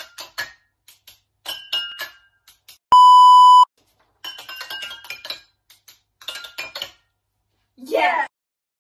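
Water-filled drinking glasses struck with thin sticks, ringing out the notes of a tune in quick taps. About three seconds in, a loud steady electronic beep lasts under a second, like an edited-in bleep. Near the end there is a short shout.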